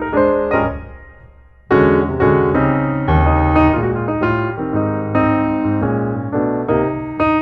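Background piano music, a slow solo piece of struck notes and chords. The notes die away almost to silence a little after a second in, then the playing resumes with a loud chord.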